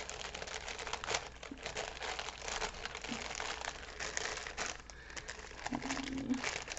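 Small clear plastic bags of diamond painting drills crinkling and rustling in the hands, in dense, irregular crackles, as they are packed back into their pouch.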